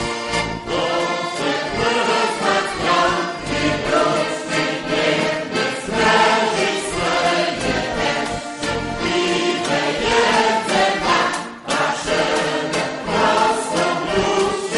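Kashubian folk choir of men and women singing a folk song in several parts, with one brief pause between phrases late on.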